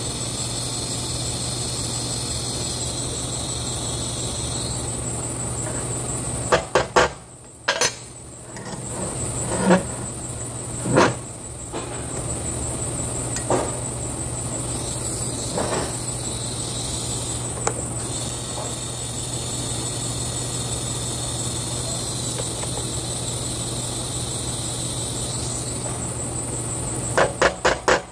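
TIG welding arc buzzing steadily while tacking a steel sprocket onto a steel tube, twice for several seconds each, over a steady low hum. Each tack is followed by a quick run of three or four sharp hammer taps on the steel, with a few single knocks in between.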